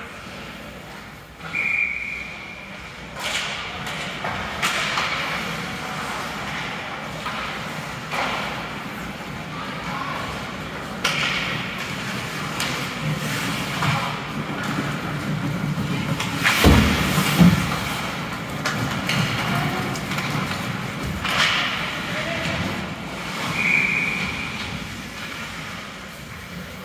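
Game ambience: spectators chattering, with several sharp thuds of impacts during play, the loudest about two-thirds of the way through. Two short, high whistle blasts, one near the start and one near the end.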